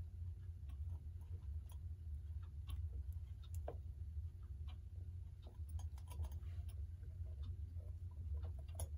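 Faint, irregular small clicks and taps of metal clock parts being handled while the coil and rotor assembly of a Telechron electric clock motor is taken apart, over a steady low hum.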